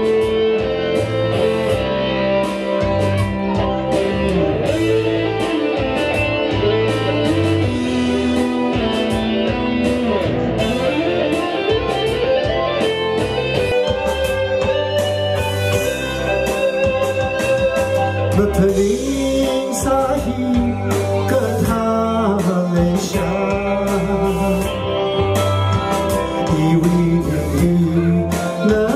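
A man singing a song into a microphone through a PA, over guitar-led backing music with a steady beat.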